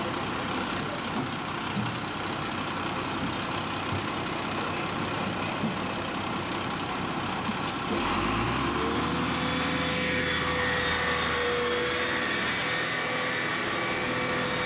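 A motor running steadily. About eight seconds in, a louder engine note rises briefly, then holds steady with a droning hum.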